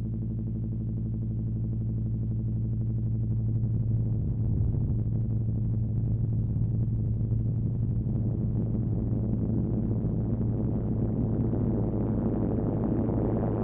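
Studio Electronics Boomstar 4075 analog synthesizer sustaining one low droning note. About four seconds in the tone turns rougher, and from about eight seconds it grows gradually brighter as its settings are tweaked.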